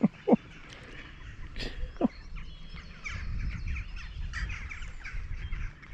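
Ducks calling: two short, sharp calls at the start and another about two seconds in, over a low rumble.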